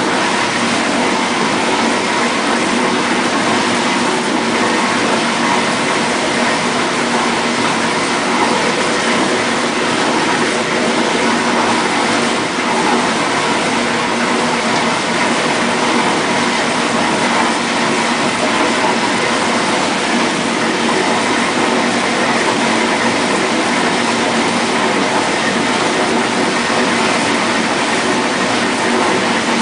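1958 GE Mobile Maid dishwasher running its wash cycle: a steady rush of water spraying inside the tub, with an even motor hum underneath.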